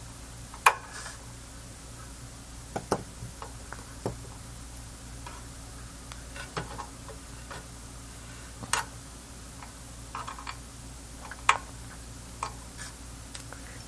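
Irregular sharp clicks and taps from hand tools and small metal parts being handled, a few seconds apart, over a low steady hum.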